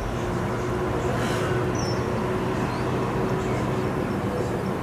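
A steady mechanical hum at a constant pitch, like a motor running at even speed, over an even background noise, with one faint short high chirp about two seconds in.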